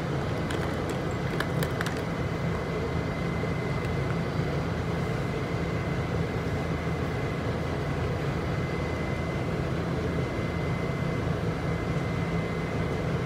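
Steady rumble of a New York City subway car running, heard from inside the car, with a thin steady high whine over it. A few light clicks come in the first couple of seconds.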